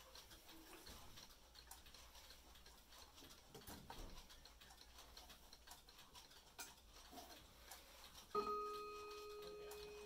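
Faint clock ticking, then about eight seconds in a single chime note is struck and rings on with a slow decay: the Howard Miller mantel clock starting to chime as its minute hand is turned forward by hand.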